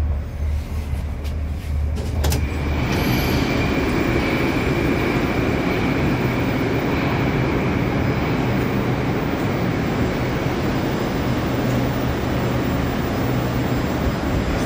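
Steady metro platform noise beside a standing 81-775 train, swelling about three seconds in and then holding, with a sharp click about two seconds in.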